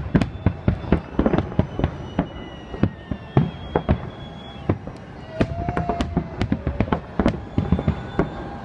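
Fireworks display: a rapid, irregular string of sharp bangs and crackles as the shells burst, several a second.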